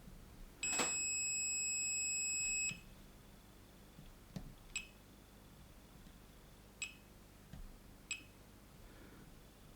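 Digital multimeter beeper sounding one steady, high-pitched beep for about two seconds, followed by a few faint clicks of test probes touching the board. The beep on diode check signals a short across the bridge rectifier's AC input.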